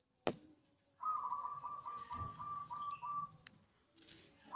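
A bird calling in a steady, slightly pulsing high trill for about two seconds, starting again right at the end. A sharp click comes first, about a quarter second in, and a low rumble runs under the second half.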